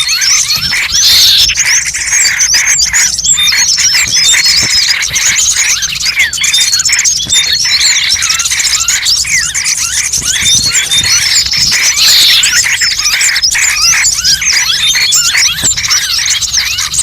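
Dense chorus of many small songbirds chirping and twittering without a break, a bird-lure (pikat) recording played loud, with louder flourishes about a second in and again about twelve seconds in.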